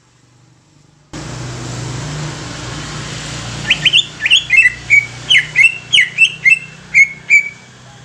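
Green leafbird (cucak ijo) calling: a quick run of about a dozen sharp, loud, downward-slurred chirps, starting about halfway through. Under them is a steady background hiss and low hum that begins about a second in.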